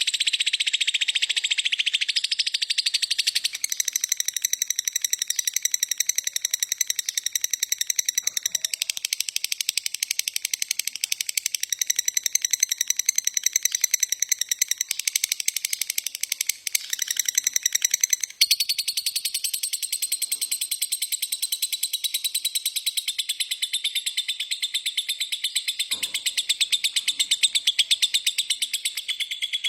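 Lovebirds chirping in a fast, unbroken high-pitched chatter, with a short break about 17 seconds in.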